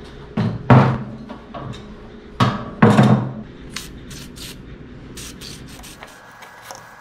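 Hard knocks and clunks from barn exhaust fan parts being handled: two pairs of heavy knocks about two seconds apart, then lighter clicks and taps. A low steady hum underneath cuts off about six seconds in.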